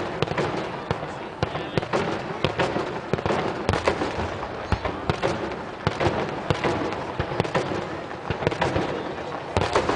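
Fireworks display: a rapid, irregular run of bangs and crackling bursts, several a second, over a continuous crackle.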